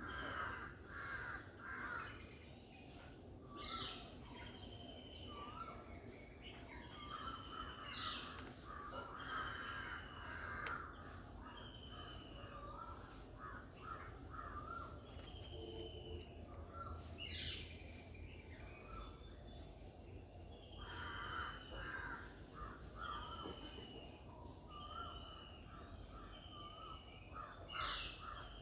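Garden birds calling: a short falling whistled note repeated about once a second, mixed with bouts of harsh, rasping chatter, over a steady thin high-pitched whine.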